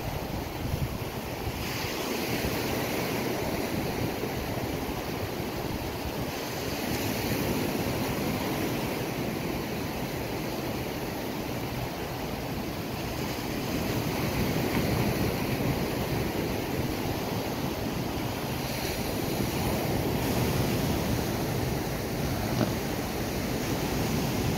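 Surf washing onto a sandy beach, the hiss swelling and easing slowly, with wind rumbling on the microphone.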